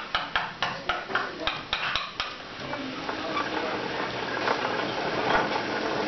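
A run of sharp clicks, about four a second, stops about two seconds in. It is followed by a steady rolling rattle as the model cliff-railway carriages' small spoked wheels run along the model railway track, drawn by their connecting string. The rattle grows a little louder near the end.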